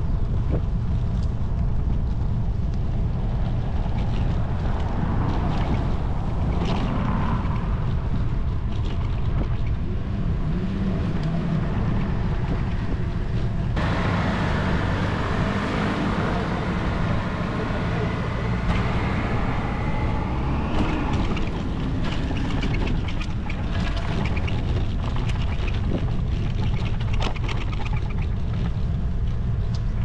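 Wind buffeting the microphone of a camera on a moving bicycle, a steady low rumble. About halfway through, a city bus close ahead adds engine and road noise for several seconds.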